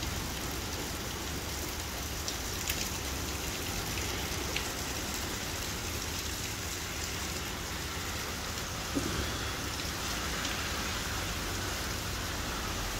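Heavy rain pouring steadily, an even hiss of rainfall.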